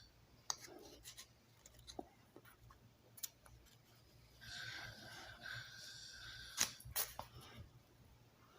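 Faint snoring: one wheezy, whistling breath about two seconds long near the middle, with a few sharp clicks scattered around it.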